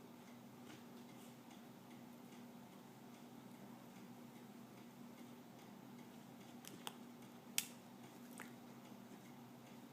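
Near silence: a steady low hum with scattered faint clicks and ticks. A sharper click comes about seven and a half seconds in.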